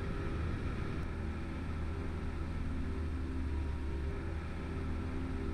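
Outboard motor of a small aluminium dinghy running steadily under way, a low even drone with a few steady pitched tones over it, and water rushing along the hull.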